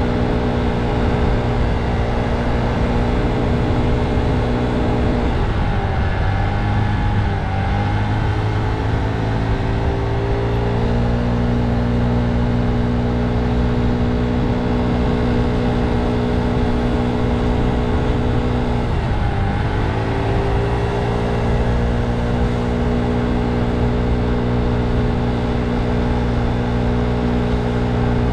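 Motor scooter engine running steadily at cruising speed over a low rumble of wind and road. Its pitch sags about five seconds in as the throttle eases, climbs back a few seconds later, and dips briefly again about two-thirds of the way through.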